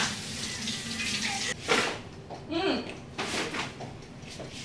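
Water poured from a mug into a bowl of cake batter, splashing and trickling, stopping after about a second and a half; a short voice sound follows.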